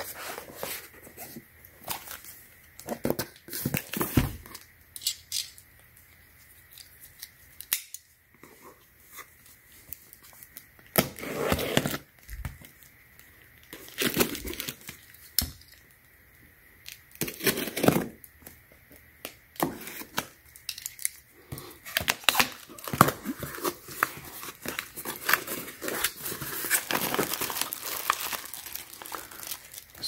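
Cardboard-and-plastic packaging being opened: scattered scraping and tearing as a utility knife slits the packing tape and the box is opened. In the last third it gives way to nearly continuous crinkling of a plastic bag.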